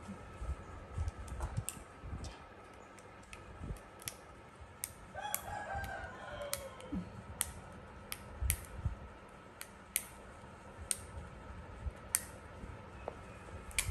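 A baby macaque gnaws a hard candy, making sharp clicks of teeth on candy at irregular intervals, with soft low thumps. About five seconds in, a drawn-out bird call sounds in the background and falls in pitch at its end.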